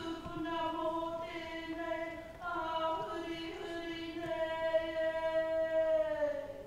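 A group of voices singing a slow song in unison, holding long notes, with the last note falling away and ending near the end.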